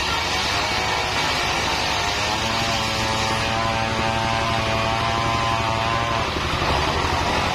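Single-cylinder diesel engine driving a circular saw blade that is ripping a mahogany beam: the engine note sags as the blade takes the load and picks back up, twice, over the steady rasp of the cut.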